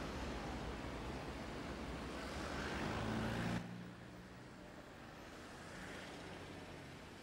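Street traffic noise with a vehicle drawing closer and getting louder, cut off abruptly about halfway through. Quiet room tone follows.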